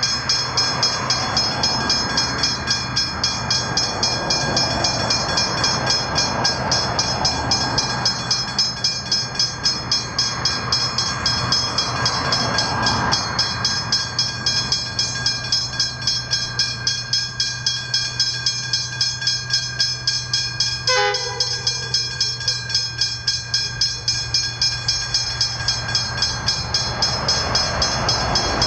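Level crossing bells (Westinghouse hybrid bells) ringing with rapid, evenly repeated strokes while the crossing is activated and the boom gates are lowered for an approaching train. A short sound falling in pitch cuts in about two-thirds of the way through.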